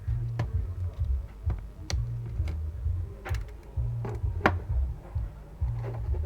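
Scattered sharp plastic clicks and ticks, about five or six of them, the loudest one near the middle, as a phone's back cover is pried open with scalpels. Under them runs background music with a pulsing bass.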